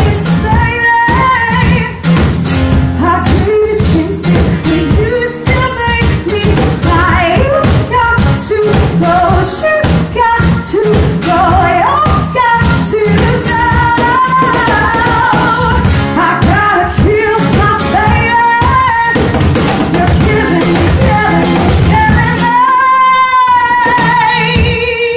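A woman singing soul into a microphone with live acoustic guitar accompaniment. Near the end she holds a long note with vibrato.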